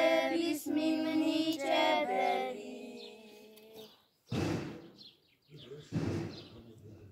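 A small group of children singing a church chant, the last phrase falling in pitch and fading out about three to four seconds in. Then two short rushes of noise, about four and six seconds in.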